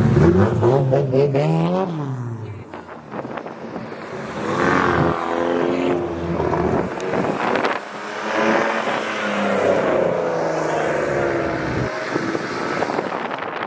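Modified car engines accelerating as cars drive out one after another; the first revs up sharply in pitch in the first two seconds, and more cars accelerate past about four and eight seconds in.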